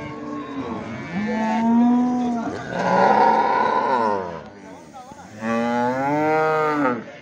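Cows mooing loudly. A long moo rises and then breaks into a harsh bellow through the first half, and a second long, lower moo comes about five and a half seconds in.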